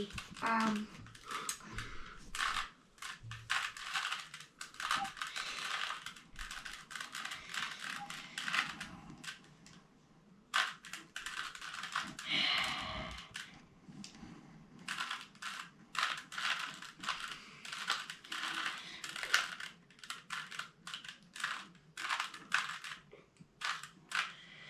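A 3x3 Rubik's cube's plastic layers clicking and clacking as they are turned by hand in quick, irregular flurries, with a short pause about ten seconds in.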